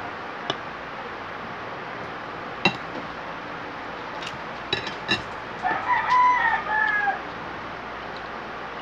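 A rooster crows once, about six seconds in: a pitched call of about a second and a half that rises and then breaks off in pieces. A few sharp clicks come before it, the loudest about three seconds in, over a steady background hiss.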